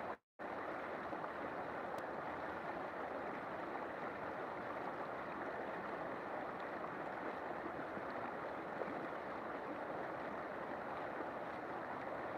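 River water flowing in a steady, even rush. The sound drops out completely for a moment just after the start, then resumes unchanged.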